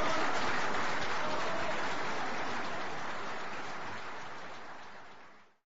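Crowd applauding, a dense even clatter that fades out steadily and cuts off near the end.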